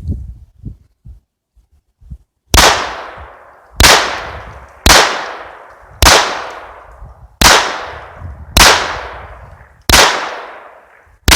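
Smith & Wesson Victory .22 LR semi-automatic pistol fired eight times in steady succession, about one shot every 1.2 seconds, starting a couple of seconds in; each sharp crack trails off in echo.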